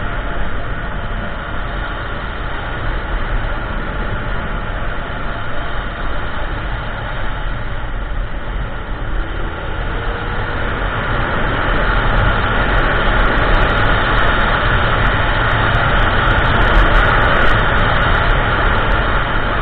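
Kymco Xciting 400i scooter riding at speed: steady wind rush buffeting the microphone over the drone of its single-cylinder engine and road noise. The wind noise grows louder past the middle, with scattered crackles.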